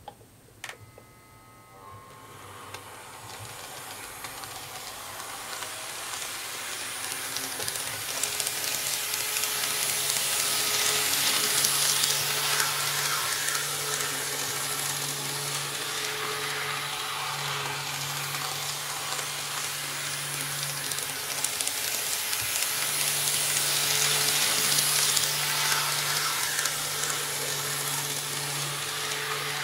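KATO N-scale KiHa 58 diesel railcar model running on KATO Unitrack laid on a single SANDAM CZ-12 soft sound-insulating sheet: a steady rolling hiss of wheels on rail with a low motor hum, swelling and fading as it laps the oval and loudest twice. A click under a second in as the power controller is worked.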